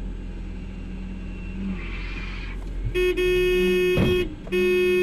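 Car horn sounding two long blasts with a short break between them, over steady road and engine rumble. A brief low thump comes near the end of the first blast.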